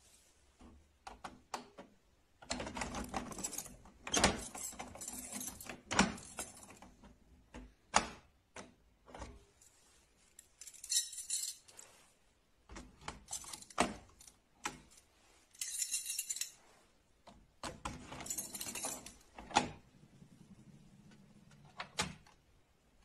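Large old key turning in the lock of a 250-year-old vault door: metal scraping and rattling as the bolt mechanism works, broken by sharp metallic clicks and clinks, the loudest a few single knocks.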